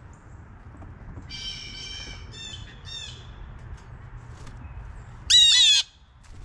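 Blue jays calling: a harsh call about a second and a half in, then two short ones, and a loud harsh call near the end.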